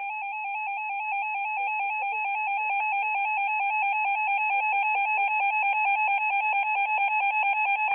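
Electronic emergency alert attention tone, starting suddenly and warbling rapidly between two close pitches several times a second, sounding ahead of an alert announcement.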